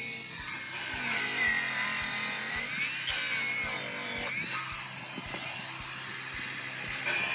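Small gasoline engine of a chainsaw running, its speed rising and falling as it revs, cutting short pieces of board to length.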